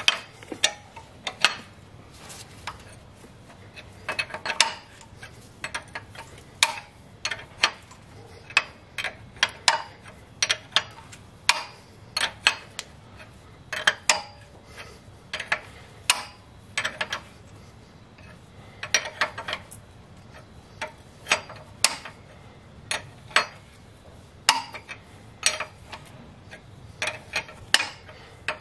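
Ratchet wrench clicking in short, irregular runs while the camshaft bearing cap bolts on the QG18DE cylinder head are being turned down.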